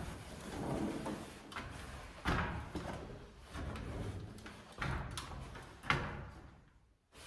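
Work-handling noises: irregular rubbing and scraping with sharp knocks about two, five and six seconds in.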